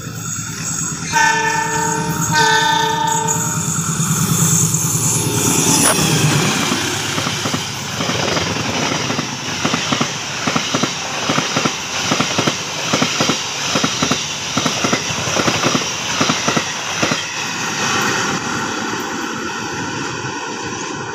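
CC203 diesel-electric locomotive sounding its horn in two blasts as it approaches, then its engine passing loudly. After it, the passenger coaches run by with a quick, even clickety-clack of wheels over rail joints, easing off near the end.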